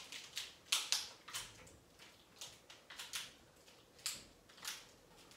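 Faint, short crinkling crackles, irregular at about two or three a second, from plastic water bottles and their packing tape flexing on a home-made broomstick barbell as it is lifted and lowered behind the head in triceps extensions.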